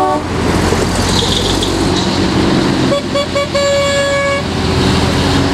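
Heavy road vehicles passing with engines running steadily, among them an ex-military six-wheel recovery truck. About three seconds in a vehicle horn gives three short toots followed by one long toot of nearly a second.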